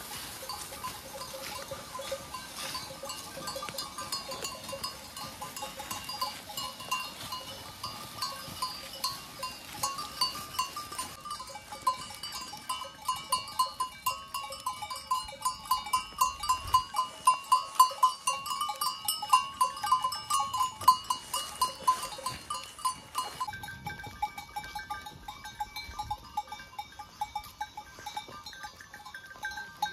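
A herd of goats on the move, their bells clinking and jingling in a quick uneven rhythm as they walk.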